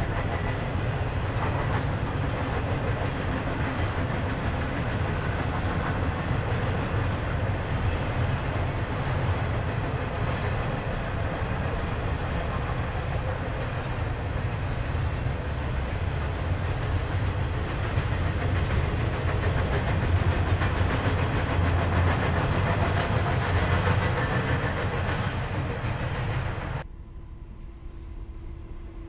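A train running by with a steady low rumble and wheel noise. About 27 seconds in it cuts off suddenly to a much quieter scene with a faint steady hum.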